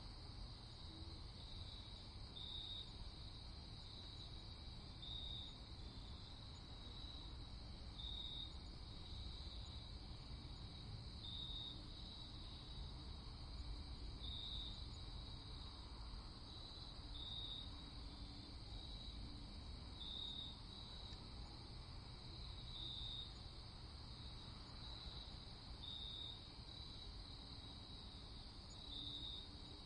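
Faint high chirping trill, typical of crickets, pulsing every second or two over a low steady background hiss.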